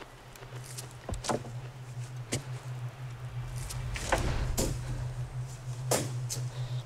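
A steady low hum with a scattered series of short sharp knocks and clicks, some close together.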